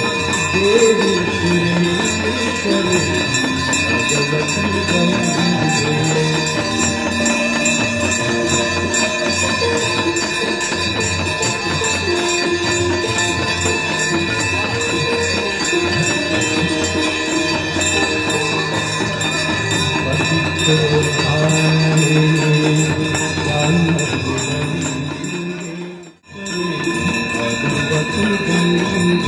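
Devotional Ganga aarti music: singing over a steady jingle of bells, which drops out for a moment near the end.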